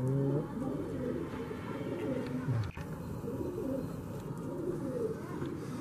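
Several domestic pigeons cooing, low repeated overlapping coos.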